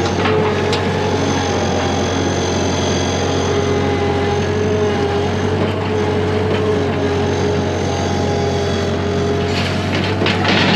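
An engine or motor running steadily with an even hum. Near the end come a few metallic clanks and knocks.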